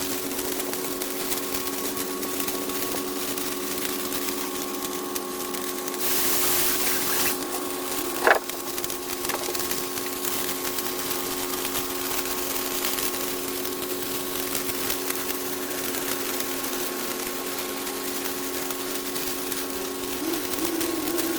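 Flux-core arc welding: a steady crackle from the arc over a constant machine hum, with a brief burst of hiss about six seconds in and one sharp loud pop a little after eight seconds.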